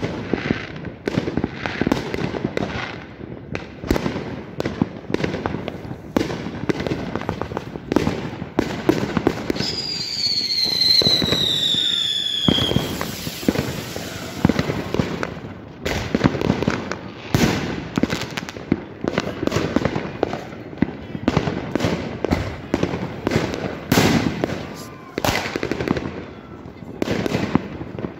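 New Year fireworks going off all around in a dense, irregular run of sharp bangs and pops. About ten seconds in, a firework whistle sounds for a couple of seconds, falling steadily in pitch.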